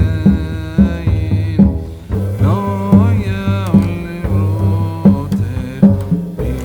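Background music: a melody with sliding pitches over a steady drum beat of about two hits a second.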